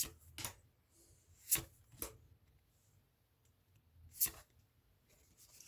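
Pokémon trading cards being handled: four short, sharp clicks with quiet between them.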